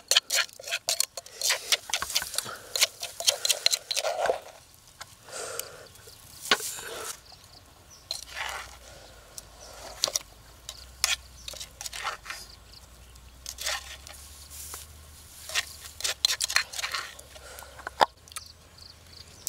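Metal spoon and pestle working in a clay mortar of pounded wet chili paste: a run of quick clicks near the start, then scattered scrapes and taps as the paste is scooped out into a coconut-shell bowl.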